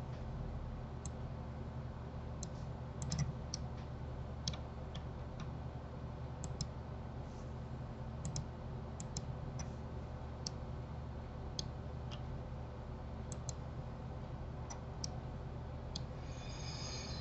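Irregular light clicks of a computer mouse and keyboard, scattered singly and in small clusters, over a steady low hum.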